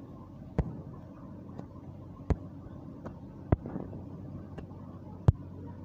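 Sharp taps on a smartphone's touchscreen, four loud ones a second or two apart and a few fainter ones, over a steady low hum of background noise.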